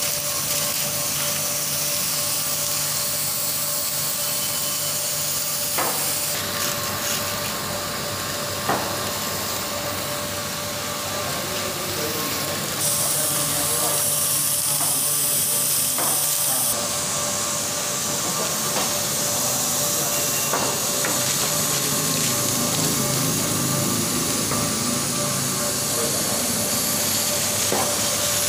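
Workshop machinery running steadily with a high hiss and a constant whine, with occasional short knocks. The hiss grows louder for a few seconds around the middle.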